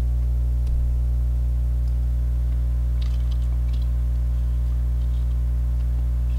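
A person chewing dry, crumbly beef jerky, heard as a few faint crackles about three seconds in, under a loud, steady electrical mains hum.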